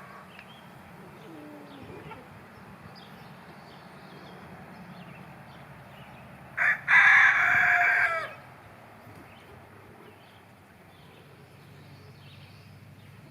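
A rooster crowing once, about six and a half seconds in: a short first note and then a longer held one that falls at the end.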